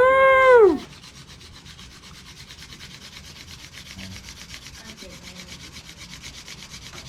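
A loud cheer of "Woo!", then a wooden friction-fire hand-drill spindle grinding fast and steadily into a wooden hearth board, a rapid even scraping that builds slightly.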